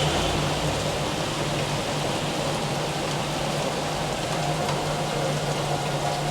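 Steady heavy rain falling during a thunderstorm, with a steady low hum underneath.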